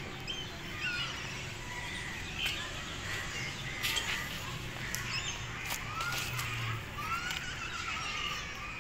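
Outdoor ambience of distant people and children's voices mixed with birds chirping, with a few short clicks.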